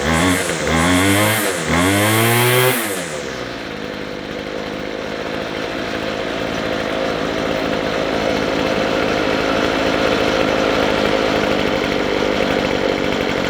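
McCulloch 250C strimmer's two-stroke engine revved in a few quick throttle blips, then dropping back to a steady idle about three seconds in. It is running on freshly richened carburettor jets; the owner suspects a hardened carburettor diaphragm.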